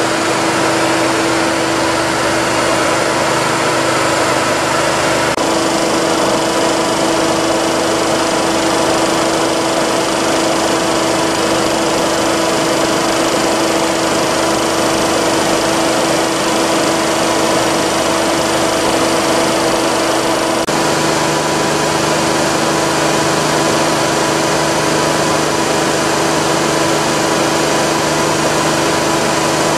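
J.P. Sauer WP311L ship's piston air compressor running steadily: a loud, even machine noise with a strong constant hum. The tone colour shifts abruptly twice, about five seconds in and again about twenty seconds in.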